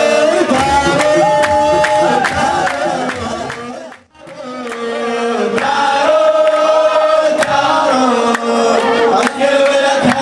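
A group of men singing a wedding song in unison, held wavering notes, with hands clapping in time about twice a second. The sound fades out briefly about four seconds in and fades back up.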